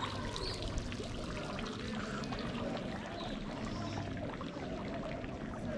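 Small fountain jet splashing and trickling steadily into a courtyard pool.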